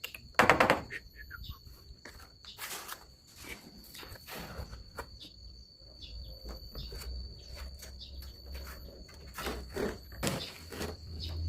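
Irregular scraping and knocking strokes, typical of hand tools working building material, over a steady high, insect-like tone.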